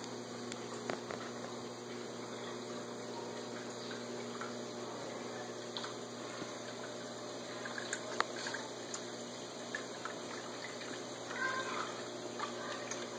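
Steady hum and water noise from aquarium equipment running, with a few faint short squeaky chirps and a sharp click about eight seconds in.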